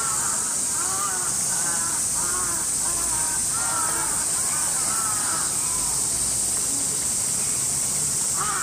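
Crows cawing in a run of short, arched calls, pausing for a couple of seconds and starting again near the end, over a steady high-pitched drone of cicadas.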